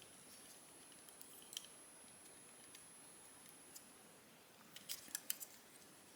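Faint clicks of small plastic model-kit parts being handled and fitted together: one about a second and a half in, then a quick cluster of three or four near the end, over near silence.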